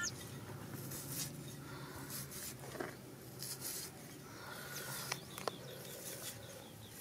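Small clicks and soft rustling of shallots being peeled and trimmed against a floor-mounted cutting blade, with a bird chirping in a quick run near the end.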